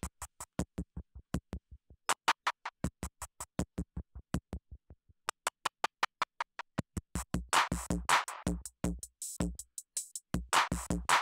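Elektron Digitakt sampler playing back a sampled loop through its Werp time-stretch machine, which keeps the sample's pitch. The loop is chopped into short slices that come out as a fast, even stutter of about five or six clicks a second. From about seven seconds in, heavier low thumps and a louder, fuller sound come in.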